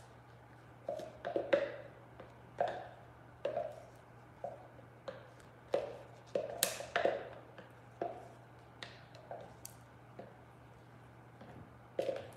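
A clear plastic mixing cup knocked and scraped against a plastic bucket while epoxy resin is emptied from it: a string of light, irregular taps and clicks. A steady low hum runs underneath.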